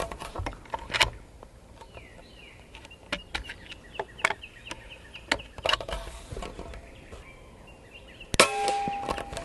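Air Venturi Avenger .25 PCP air rifle fitted with a Zero DB Tactical moderator: a run of sharp clicks and clacks as the rifle is handled and loaded, then one moderated shot near the end, the loudest sound, followed by a brief ringing tone.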